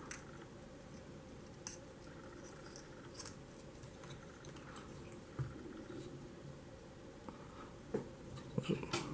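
Faint, scattered clicks and taps of small plastic model-kit parts being handled and pressed onto a plastic display stand, with a few sharper clicks close together near the end.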